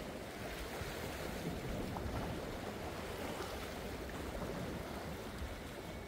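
Steady wind buffeting the microphone, with the wash of the sea beneath it.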